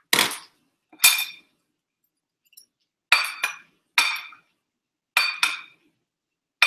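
Metal chopsticks clinking against dishes as food is picked up: sharp ringing clinks, about eight of them, several coming in quick pairs.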